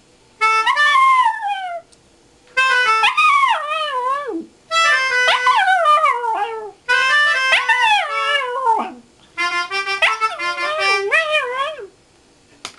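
Toy poodle howling in five long, wavering phrases, its pitch sliding up and down and falling away at the end of each, with short breaks between.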